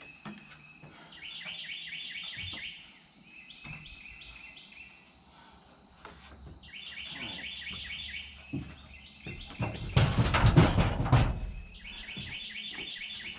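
A songbird singing: repeated phrases of rapid, evenly spaced high chirps, each phrase lasting one to two and a half seconds with short pauses between. About ten seconds in, a loud rustling noise lasts for a second and a half.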